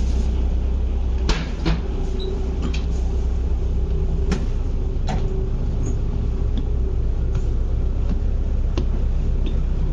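Steady low hum of a ferry's engine heard from on board, with a few sharp knocks and clicks at irregular intervals as someone climbs the stairs to the upper deck.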